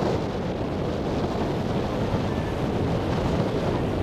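Wind buffeting the microphone over the steady running of a harbour ferry's engine and the wash of water along its hull.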